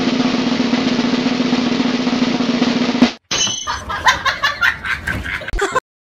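A snare drum roll that stops abruptly about three seconds in, followed by a couple of seconds of choppier sound with scattered short knocks that ends suddenly.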